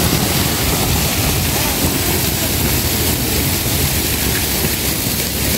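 Water running steadily in a man-made stream, a loud, even rush.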